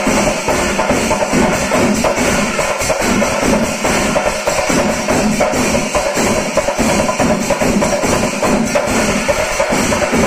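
Kerala temple chenda melam: a large ensemble of chenda drums beating in dense, rapid strokes, with the jingling clash of ilathalam cymbals.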